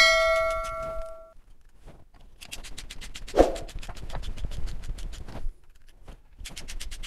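Ratchet screwdriver clicking rapidly, about eight clicks a second, in two runs as screws are driven into a steel shelf bracket. It opens with a metallic ring that dies away over about a second, and there is a single knock in the middle.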